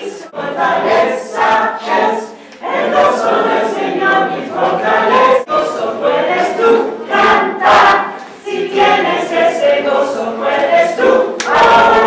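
A group of voices singing together like a choir, with no clear instruments.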